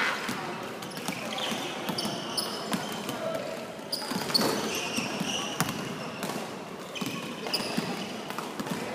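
Basketballs bouncing on a hardwood gym floor, echoing in a large hall, with short high sneaker squeaks and players' voices in the background.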